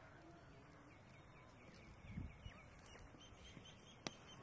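Faint ambience with small birds chirping, a dull thump about two seconds in, then a single sharp crack of a cricket bat striking the ball near the end.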